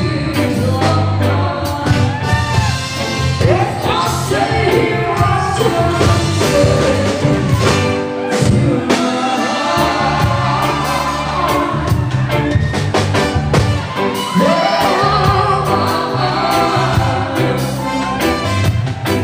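Live band playing a reggae arrangement of a pop ballad, with a woman singing the melody into a microphone over a steady beat.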